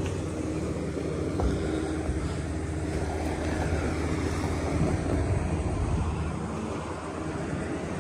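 Wind buffeting the microphone outdoors: a steady low rumbling noise, with one light knock about one and a half seconds in.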